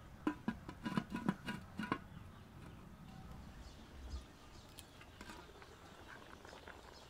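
Aluminium pot lid clinking against the metal pot, a quick run of about eight light, ringing clicks in the first two seconds, then only faint scattered ticks.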